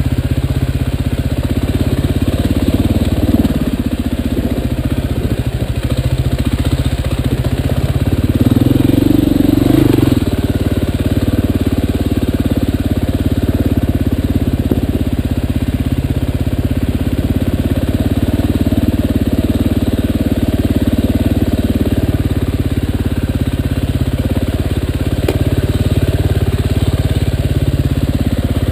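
Dirt bike engine running steadily at low speed on a rough trail. The engine note swells briefly about three seconds in and again from about eight to ten seconds in.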